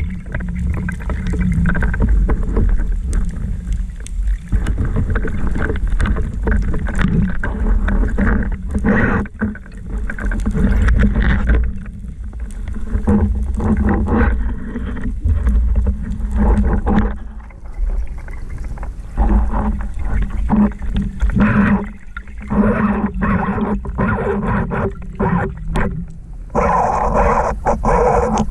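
Underwater sound picked up by a camera on a breath-hold spearfishing dive: a low steady rumble of water with irregular clicks and knocks throughout. The sound changes near the end, with more mid and high noise.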